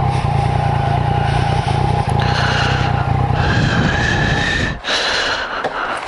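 Yamaha MT-09's three-cylinder engine running steadily, with a steady whine over the engine note; the engine sound drops away abruptly about five seconds in.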